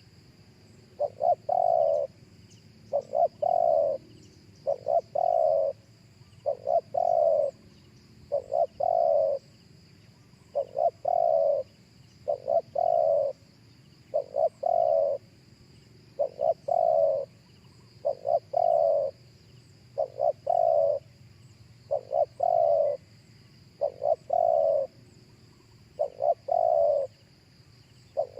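Spotted dove cooing over and over, each phrase two short coos followed by a longer one, repeated about every two seconds.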